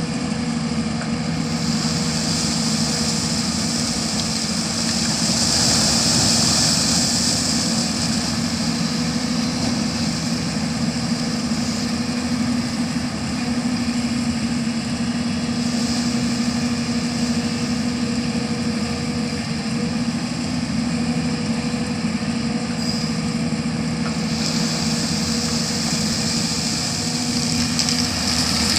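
Diesel engine of an earthmoving machine running steadily, with a high hiss that grows louder between about two and eight seconds in and again from about twenty-four seconds.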